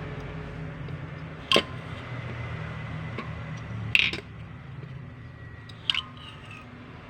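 Three sharp clinks with a short metallic ring, about a second and a half, four and six seconds in, as hard parts are knocked while being handled, over a steady low hum.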